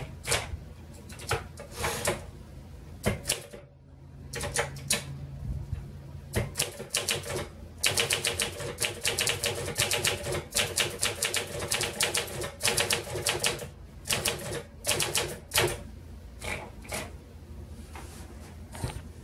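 1965 Smith Corona Sterling portable typewriter being typed on: typebars striking the platen in sharp clicks, spaced and irregular at first, then a fast, dense run of keystrokes in the middle, slowing again near the end.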